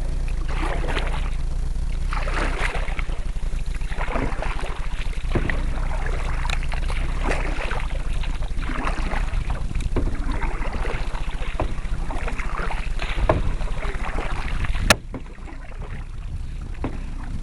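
Canoe paddle strokes swishing through the water, one about every second and a half, over a steady low rumble of wind on the microphone. A sharp click comes near the end, after which the rumble drops.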